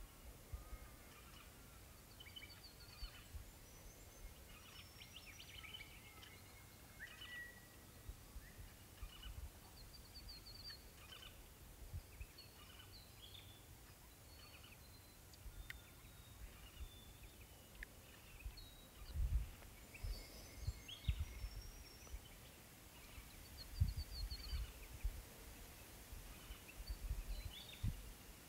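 Faint outdoor ambience of birds chirping and trilling in short, scattered calls, with a few irregular low rumbles such as wind on the microphone.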